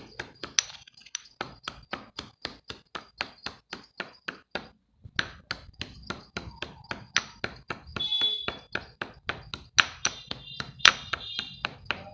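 A utensil beating rapidly against a mixing bowl, as when mixing cake batter: even clicking strikes about four a second, with a brief metallic ring about eight seconds in and again near eleven seconds.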